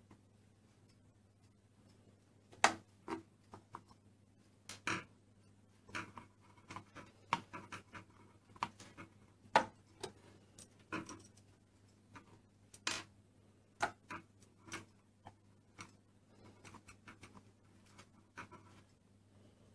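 Plastic Play-Doh toy tools and moulds clicking and tapping on a tabletop at irregular intervals, over a faint steady low hum.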